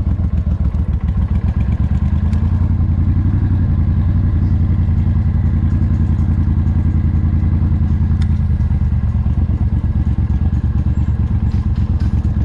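Motorcycle engine idling steadily at low revs with a rapid, even pulse, heard close up from the bike carrying the camera.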